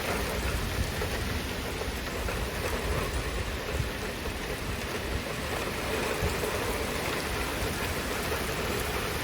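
Heavy thunderstorm rain pouring down in a steady downpour.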